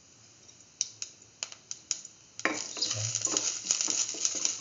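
Cumin seeds in hot oil in a stainless-steel pan. At first there are only a few scattered pops, then about two and a half seconds in a dense sizzling crackle starts suddenly as the seeds begin to fry.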